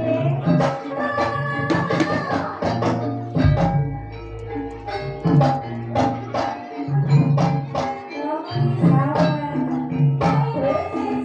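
Javanese gamelan-style ensemble music for an ebeg dance: rhythmic drum strokes and ringing struck metal instruments, with a deep low tone swelling about three and a half seconds in.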